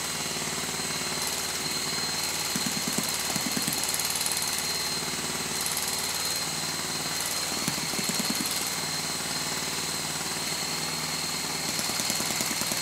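Electric starter motor spinning a small model four-stroke glow-plug engine, a steady fast rattling buzz with a thin high whine, while a finger covers the carburettor intake. The engine pops a little, trying to run but not catching; the owner finds it has very little compression.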